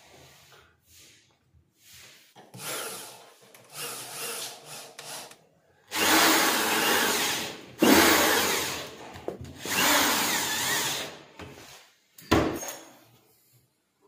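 Total cordless drill-driver driving screws through a drawer lock's metal mounting plate into the wooden drawer front: three runs of the motor of about a second and a half each in the second half, then one short burst near the end.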